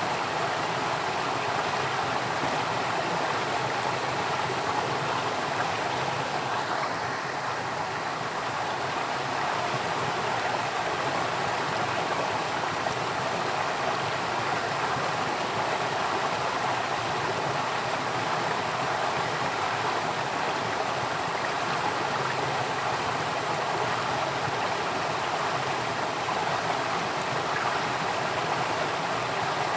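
Water of a stream flowing steadily, a continuous rushing with no pauses or changes.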